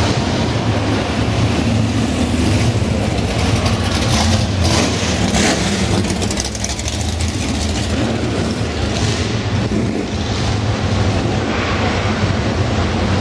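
Muscle car engines running with a steady, deep rumble, and short bursts of noise about four to five seconds in.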